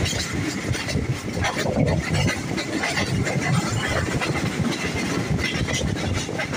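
Passenger train running at speed, heard from the side of a coach: a steady rumble with irregular clatter of the wheels on the track.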